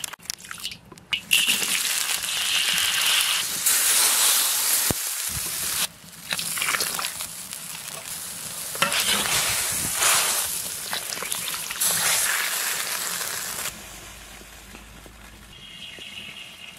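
Hot oil and sauce sizzling in a wok as braised fish is cooked, cut in several short shots. The sizzling drops to a much quieter hiss for the last few seconds.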